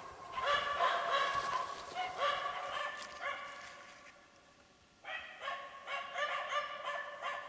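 Finnish spitz barking in a rapid, high series, the bay of a tree-barking hunting dog marking game up in a tree. The barking fades away about three seconds in and starts again sharply about five seconds in.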